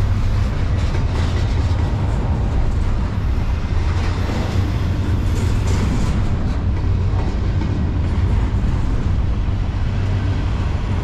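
Double-stack intermodal freight train rolling slowly past, its well cars giving a steady rumble on the rails with a few faint clanks in the middle.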